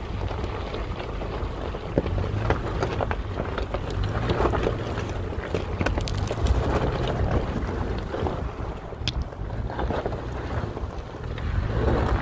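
Toyota 4Runner TRD Off-Road crawling up a loose gravel trail: a steady low engine and drivetrain rumble, with scattered clicks of stones under the tyres and wind buffeting the microphone.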